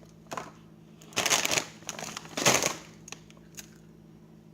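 Pretzel bag rustling in two short loud bursts as another large pretzel is pulled out, with a few light clicks of handling.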